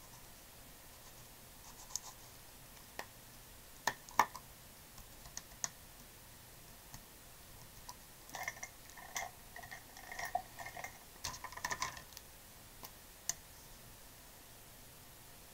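Faint clicks and taps of marker and brush pens being picked up and set down on the desk, then a spell of scratchy plastic clattering from about eight seconds in as the pens are shuffled among each other.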